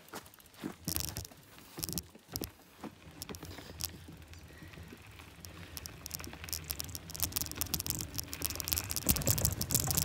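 Mountain bike ridden over a rough dirt trail: scattered knocks, clicks and rattles of the bike and its tyres on the ground, getting louder and busier toward the end, where a low rumble joins in.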